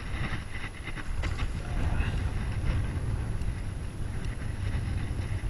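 Wind buffeting the microphone in a gusty, low rumble, with a few faint handling clicks.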